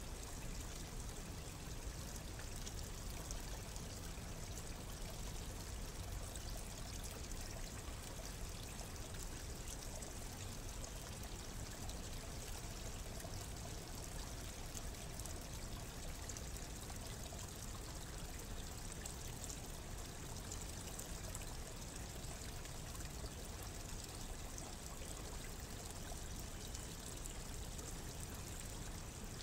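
Steady, even rushing noise, water-like, with no distinct events or changes.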